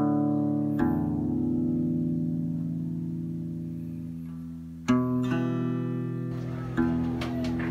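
Background music: slow guitar chords, each struck and left to ring out, with a new chord about one, five and seven seconds in.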